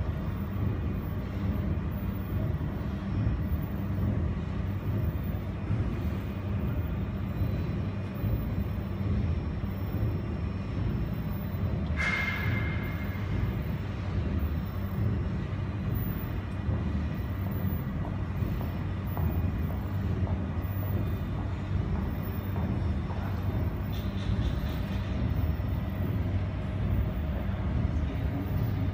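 Steady low machine hum of a jewelry laser welder and its water chiller running. A short ringing ping sounds about twelve seconds in, and a few faint clicks come near the end.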